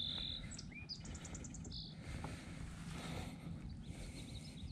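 Small birds calling: short high chirps, a brief rising whistle and a quick trill in the first second and a half, with more chirping later, over a faint, steady low rumble.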